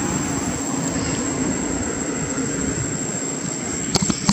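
Steady low rumble with a faint droning hum, like a distant engine. A couple of sharp clicks come near the end.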